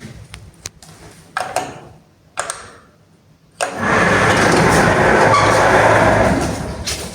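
Old relay-controlled Samarkand LP-320 passenger lift (1981): several clicks and knocks, then about three and a half seconds in its machinery starts abruptly into a loud steady rush with a low hum, easing off near the end.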